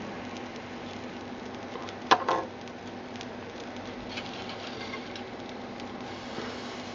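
Handling noises from a glass spirit lamp on a Stirling engine's brass stand. Two sharp clicks come close together about two seconds in, then faint small taps and scrapes as the lamp is slid into place.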